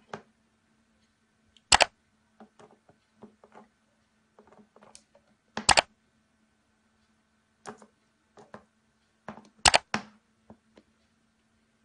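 Scattered sharp clicks and light knocks of small hard objects, with three louder knocks about four seconds apart, over a faint steady hum.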